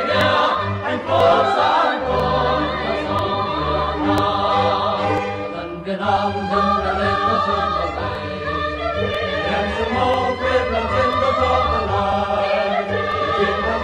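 Mixed choir of men's and women's voices singing a Vietnamese revolutionary song in full harmony, over an instrumental accompaniment with a steady bass.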